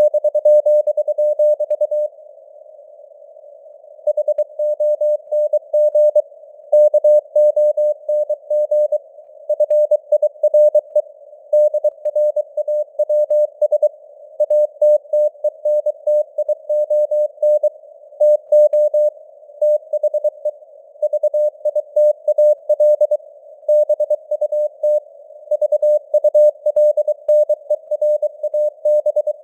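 Morse code (CW) at 23 words per minute: a single tone of about 600 Hz keyed on and off in dots and dashes, over a faint hiss of simulated radio noise. About two seconds in there is a pause of roughly two seconds before the keying resumes.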